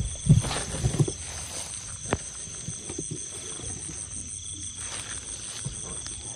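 Steady, high-pitched chorus of crickets and other insects, one of them pulsing rapidly. A few dull thumps come in the first second, and a single sharp knock about two seconds in.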